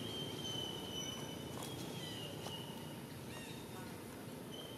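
Outdoor ambience: a steady low background hum with a few long, high, level whistling calls, each held for a second or more. There are faint short chirps in between.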